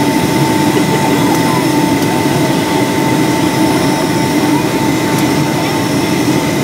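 Steady cabin noise inside a Boeing 757-204 airliner in flight: the even rush of air and the Rolls-Royce RB211 jet engines heard from a seat over the wing, with a faint steady whine running through it.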